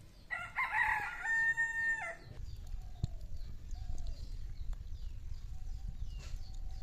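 A rooster crowing once, about two seconds long: a rough opening and then a long held note that cuts off. After it comes a low rumble, with faint short calls repeating about once a second.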